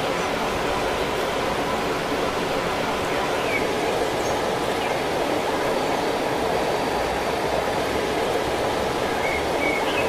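Steady rushing of a waterfall.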